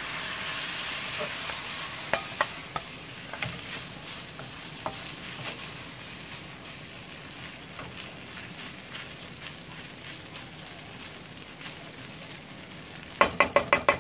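Rice with garlic and a freshly added sauce sizzling as it fries in a non-stick frying pan, stirred with a utensil that scrapes and clicks against the pan. Near the end, a quick run of about five knocks of the utensil on the pan.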